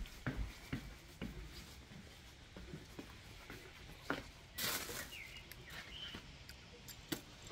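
Handling noise from a handheld phone camera being carried along: scattered light clicks and knocks, thickest in the first second or so, and a brief rustling rush a little past the middle. Two faint short chirps come soon after it.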